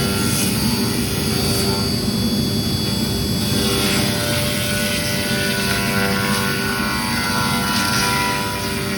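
Spindle of a large CNC router, 15 HP, running steadily with a whine while a surfacing bit flattens a wood slab; the cutting noise swells and eases as the bit works across the slab, and the level dips slightly near the end.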